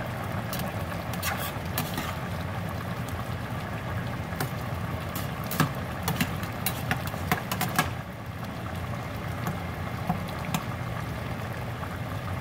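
A slotted metal spoon stirring stew in a stainless steel pot, clinking and scraping against the pot, with the clinks bunched about halfway through, over a steady low hum.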